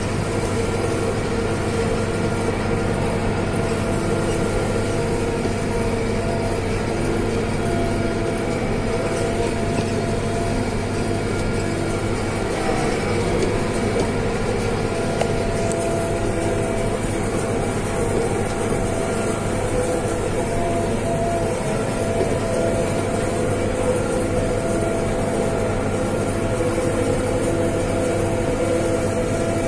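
Tractor engine running steadily while pulling a hay baler, heard from inside the cab as an even, unbroken drone.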